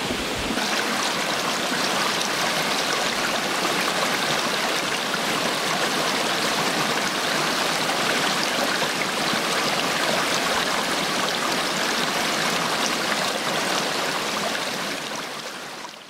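Small mountain stream babbling over rocks, a steady rush of flowing water that fades out near the end.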